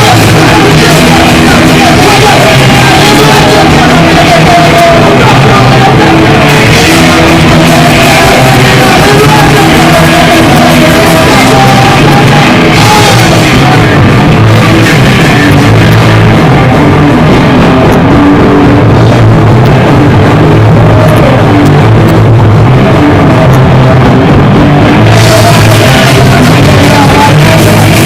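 A rock band playing loudly live in a hall, with singing and shouted vocals over the band.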